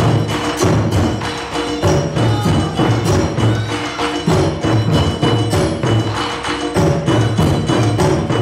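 Taiko drum ensemble playing loudly in a steady, driving rhythm: deep strikes on a large barrel drum on a tall stand, with sharp higher strokes from smaller stand-mounted drums.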